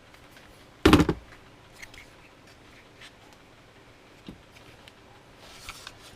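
Handling noises: one loud knock about a second in, then a few faint clicks and a soft rustle near the end.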